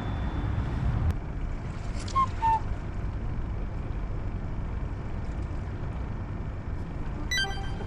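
Steady low wind rumble on the microphone, with two short high beeps about two seconds in and a brief ringing tone near the end.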